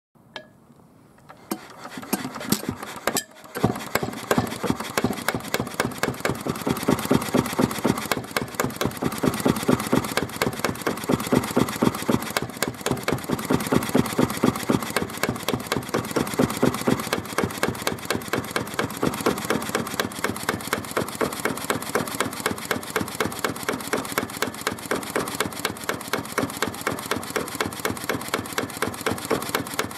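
Yanmar NK2 single-cylinder stationary diesel engine being started: a few clicks as it is turned over by hand, then it catches about four seconds in and runs with a steady, rhythmic metallic knock ('kan, kan, kan'). Its valves have been freshly lapped to cure a compression leak, and it starts easily.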